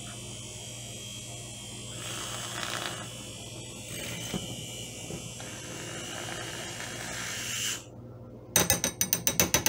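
Aerolatte battery-powered handheld milk frother whirring steadily as its whisk spins in a glass of milk, frothing it. The whir stops about 8 seconds in, and a quick run of loud clicks follows.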